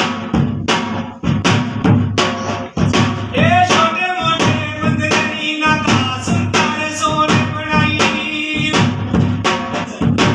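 Double-headed barrel drum (dholak) beaten by hand in a steady devotional rhythm. A singing voice joins with a long, wavering melody from about three seconds in until near the end.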